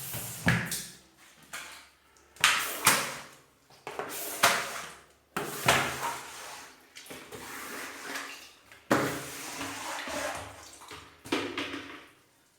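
A series of about ten sudden bangs or clattering hits at uneven intervals, each dying away quickly.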